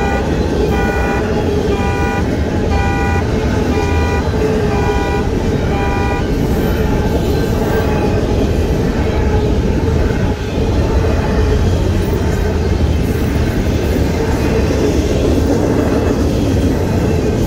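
Union Pacific intermodal freight train of container cars rumbling steadily past at a grade crossing. The crossing's warning bell rings about once a second until about six seconds in.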